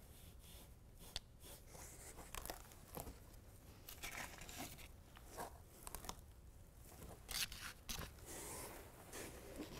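Faint, irregular scratchy rubbing of an adhesive-promoter wipe scrubbed over the hard plastic side panel of a pickup bed, with small clicks and rustles of handling.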